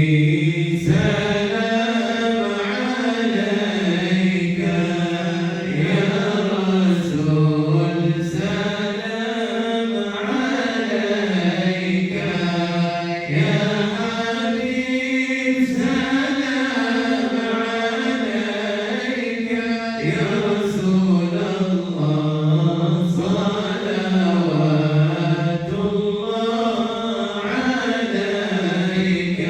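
Group of voices chanting an Islamic devotional salawat in praise of the Prophet Muhammad, in unison, in long drawn-out phrases whose melody rises and falls slowly.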